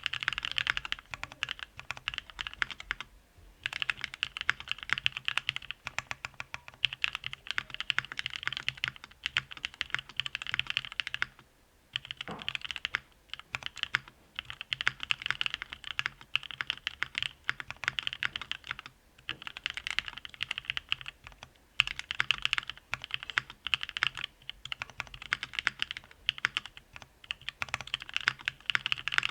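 Bakeneko 60 O-ring gasket-mount mechanical keyboard with lubed Durock POM linear switches and GMK keycaps, typed on quickly in runs of several seconds separated by short pauses.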